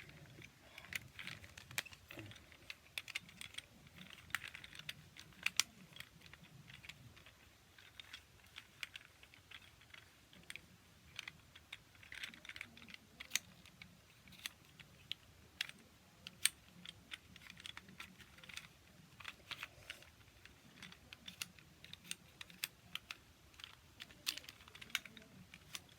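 Plastic twisty puzzle being turned by hand: irregular, quick clicks and clacks of its plastic pieces, several a second, with soft handling rustle. The puzzle is stiff and very hard to turn.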